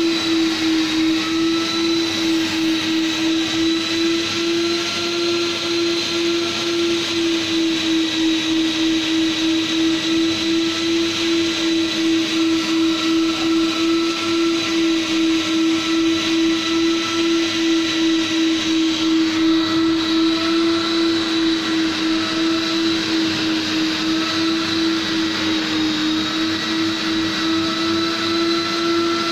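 Commercial wet-dry vacuum motor running steadily, a continuous hum and whine over a rushing hiss, as its hose tool is worked across office carpet to suck it out during carpet cleaning.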